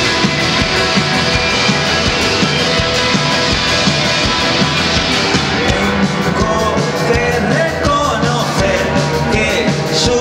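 Live rock band playing loud: electric guitars, keyboard and drums with a steady beat, and a voice singing over them from about six seconds in.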